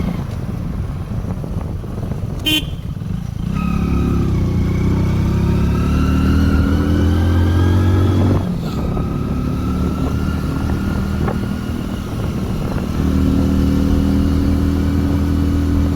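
Motorcycle engine running on the move, climbing in pitch as it accelerates from about four seconds in, easing off briefly, then pulling again near the end. A short horn beep sounds about two and a half seconds in.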